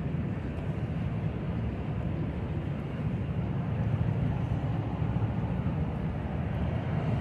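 A boat's engine running steadily under way, a constant low rumble with a haze of water noise over it.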